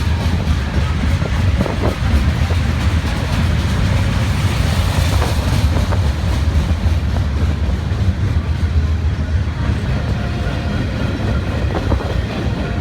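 Freight train cars rolling past: a steady low rumble of steel wheels on rail, with a few faint clicks from the wheels.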